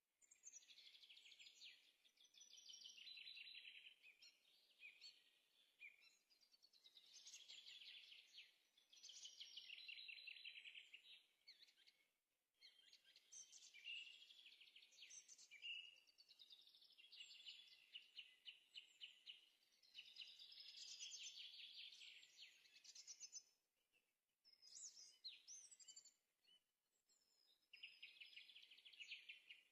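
Faint songbird song: rapid trilled and chirping phrases a few seconds long, repeated with short pauses.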